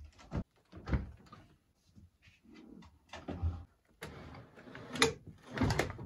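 A fridge-freezer door is opened, then a plastic freezer drawer full of frozen packets is slid out. These make a series of knocks and clunks, loudest near the end as the drawer comes out.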